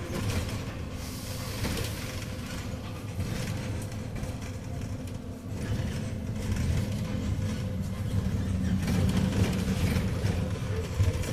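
Engine and road noise of a moving vehicle, a steady low rumble with traffic noise that swells and fades several times.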